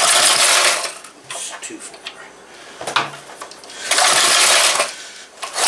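A 2-horsepower Briggs & Stratton single-cylinder engine is being pull-started on full choke. There are three pulls of the starter, each about a second of rushing, cranking noise, with quieter gaps between in which the engine has not yet caught.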